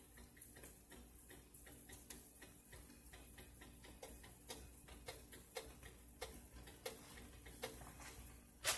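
Faint, irregular crackling and popping of coconut oil in a frying pan under a cooking pancake, over a low steady hum, with a brief louder noise at the very end.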